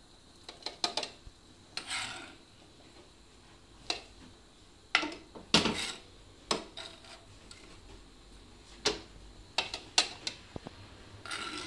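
Spatula scraping and knocking against a frying pan and tapping on a plastic food-chopper bowl while cooked bell peppers are scooped across: an irregular string of sharp clacks and short scrapes, loudest around the middle.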